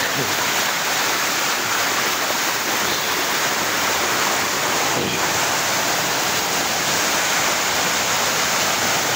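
Shallow spring-fed stream rushing and splashing over rocks in a steady, unbroken rush of water.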